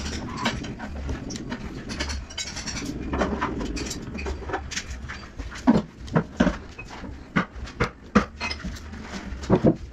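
A screwdriver turning screws into the metal gear housing of a Hilti TE 7-C rotary hammer: a run of small ticks and scrapes, with sharper clicks and knocks in the second half.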